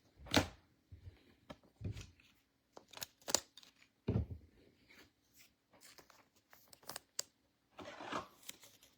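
Trading cards and packs being handled on a table: scattered light taps, clicks and rustles, with a few soft thumps, the loudest about half a second in.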